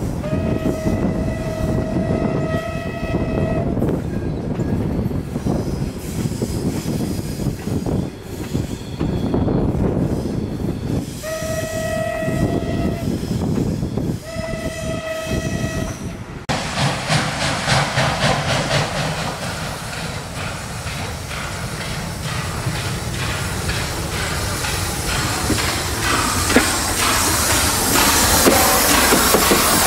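Steam locomotive whistle blowing three times, one long blast then two shorter ones, over the rumble and clickety-clack of the train's carriages running along the track. Then, from about halfway, a steady steam hiss from a ČSD class 433.0 tank locomotive moving slowly, growing louder near the end.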